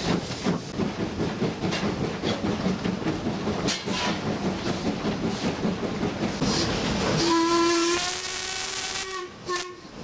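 Ivatt Class 2 2-6-2 tank locomotive No. 41313 running under steam, heard from its footplate: a rapid rhythmic beat of exhaust and wheels on the rails. About seven seconds in, its steam whistle sounds one long blast of nearly two seconds, then a short toot near the end.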